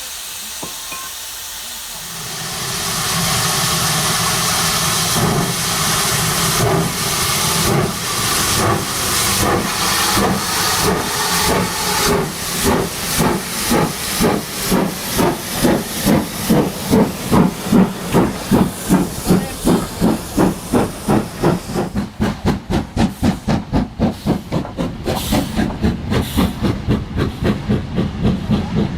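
Sound-fitted model steam locomotive pulling away: a steam hiss builds about two seconds in, then chuffs begin slowly and quicken to about three a second. The hiss dies away about three quarters of the way through while the chuffing carries on.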